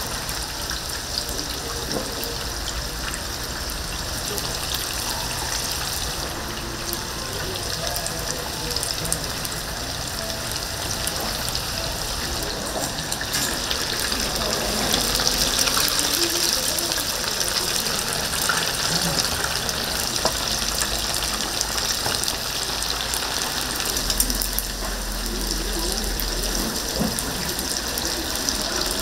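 Chicken deep-frying in a vat of hot oil: a steady bubbling hiss that swells louder about halfway through.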